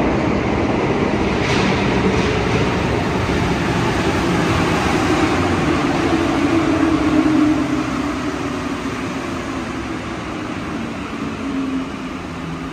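Cabin noise inside an Alstom NS-16 rubber-tyred metro train in motion, with a motor whine that slowly falls in pitch while the running noise eases off in the second half as the train slows.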